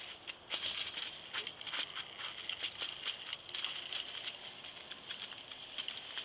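A K'NEX remote-controlled car driving: a steady high whine from its small electric motors under a continuous irregular clicking and rattling of its plastic gears and frame.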